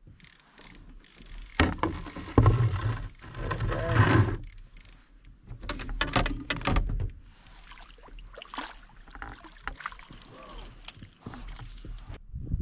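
Canoe being paddled, with paddle splashes in the water and irregular knocks against the hull, heaviest a couple of seconds in.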